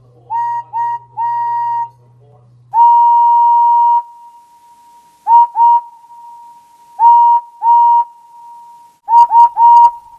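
Henry's steam engine whistle sound effect, a single steady note that scoops up into pitch at the start of each blast. It sounds three short toots, then one long, loud blast of over a second, then two pairs of short toots, then a quick run of three near the end. The recording plays slightly sharp from PAL speed-up.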